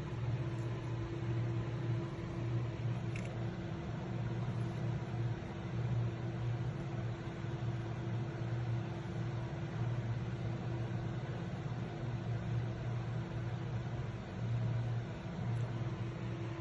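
Steady low mechanical hum of a small motor running, with a constant higher tone over it.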